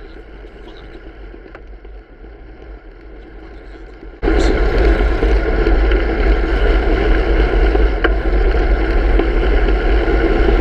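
Wind buffeting a bike-mounted action camera's microphone while riding, mixed with road and traffic noise. About four seconds in it jumps suddenly much louder and stays loud and steady.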